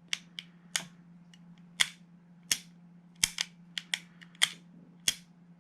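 About a dozen sharp clicks at irregular spacing from the GHK G5 airsoft rifle's lower-receiver trigger mechanism being worked by hand, as the reassembled fire control group is tested.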